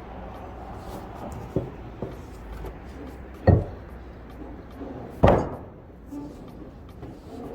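Heavy masonry pieces being handled and knocked into place: a couple of small knocks, then two loud sharp thuds about two seconds apart, the second ringing briefly, over a steady low rumble.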